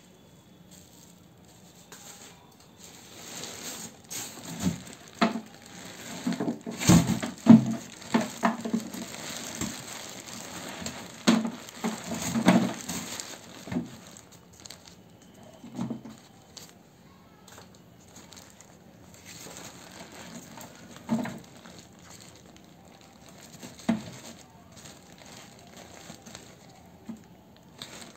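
Thin plastic carrier bag crinkling and vegetable peels rustling as they are tipped and pushed by hand into a plastic bin, with irregular knocks. Busiest in the first half, then only an occasional rustle or knock.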